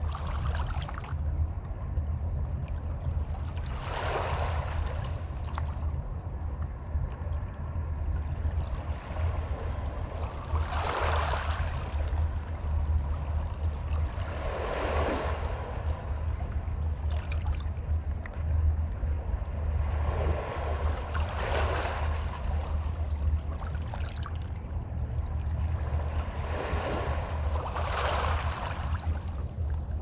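Small waves of Puget Sound washing onto the shore, each a brief swish every few seconds, over a steady low rumble.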